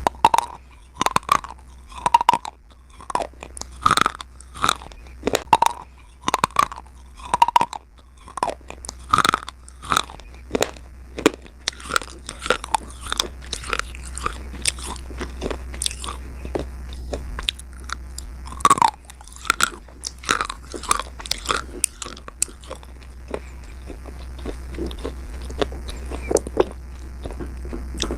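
A person biting and chewing slate pencils: loud, sharp crunches about one or two a second at first, turning after about halfway into quicker, softer crunching as the pieces are chewed down, over a steady low hum.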